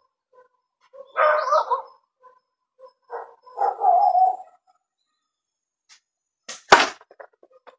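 A dog barking in two bouts of about a second each, then a single sharp crack near the end.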